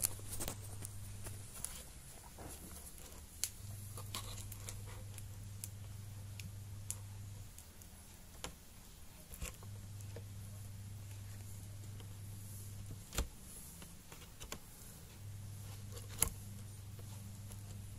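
Scattered light clicks and taps from a laptop LCD panel and its plastic screen bezel being handled, with the sharpest knocks about two-thirds of the way through and near the end. A low hum comes and goes every few seconds underneath.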